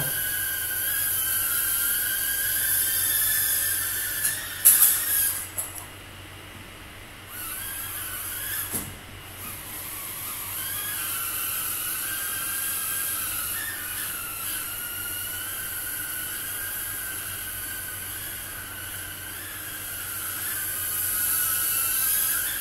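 Tiny whoop micro drone's motors and propellers whining, the pitch wavering as the throttle changes. A few sharp knocks come about five seconds in, after which the whine drops away for about two seconds and then returns, with another knock near nine seconds.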